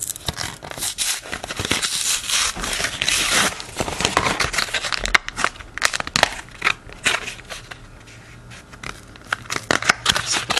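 A plastic blister pack being torn and pried open: dense crinkling and crackling of the stiff plastic shell with sharp snaps, easing off for a moment near the end before a few more snaps.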